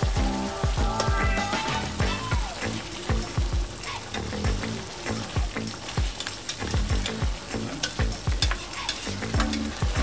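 Chicken tongseng sauce sizzling and bubbling in a wok while a metal spatula stirs it, with frequent short clicks and scrapes of the spatula against the pan.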